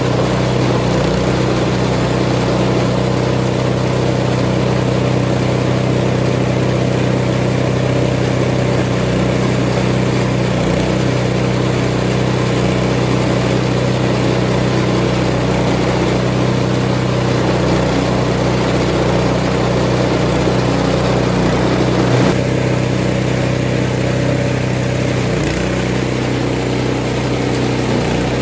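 Homemade feed-processing machine for chopping banana stems, running steadily with a constant engine-like hum. A single short knock comes about three-quarters of the way through.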